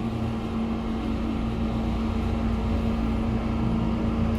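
Passenger lift car travelling down between floors: a steady hum of the drive with one constant low tone and a low rumble, heard from inside the car.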